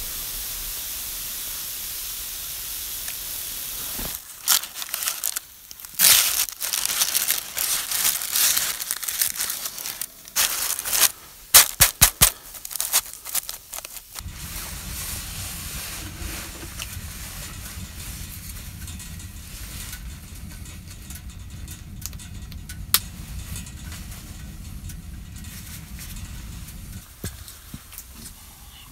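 Baking parchment around a freshly baked dutch-oven loaf crinkling and crackling in loud irregular bursts as the bread is handled, after a few seconds of steady hiss. Later a low steady rumble takes over.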